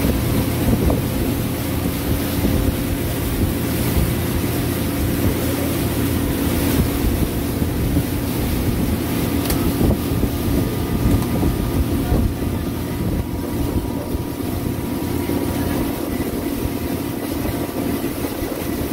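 Motorboat engine running steadily at cruising speed, a constant hum with the boat underway, and wind buffeting the microphone.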